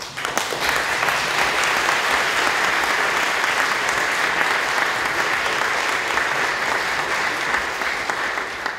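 A large audience applauding with dense, steady clapping that starts to die down near the end.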